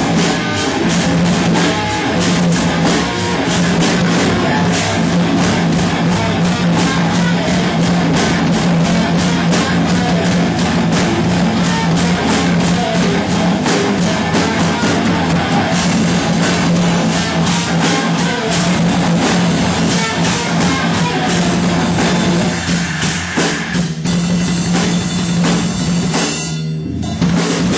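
A rock band playing in rehearsal: fast, dense drumming with guitar over a steady low note held underneath. The playing thins out a few seconds before the end, breaks off briefly, then starts again.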